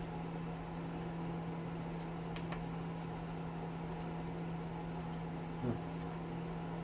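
A steady low hum from a running machine or appliance, with a few faint clicks from small parts being handled, about two and a half seconds in.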